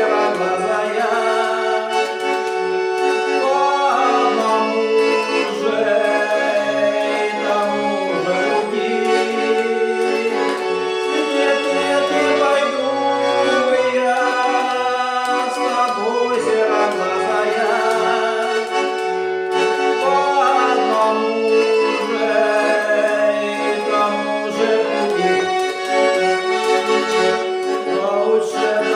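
Accordion playing a melody over sustained chords, steady and continuous.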